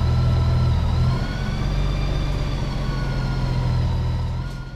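Honda Goldwing GL1800's flat-six engine idling steadily, fading out near the end.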